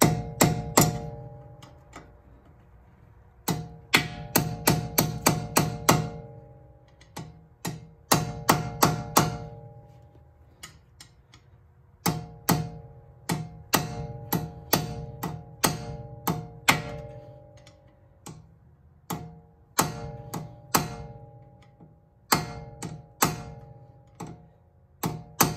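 Hammer tapping a steel punch against the front wheel hub's axle nut, staking the nut's collar into the slot to lock it. Sharp metallic taps come in quick runs of several strikes with pauses between, each run leaving a ringing metal tone.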